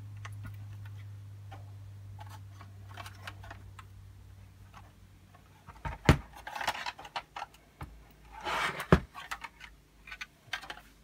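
3D-printed R2-D2 foot drive turning with a low steady hum that fades away over the first five seconds or so, slightly crunchy where the bolts foul the sides of the assembly. Then come a few sharp knocks and clatter of hard plastic as the assembly is handled.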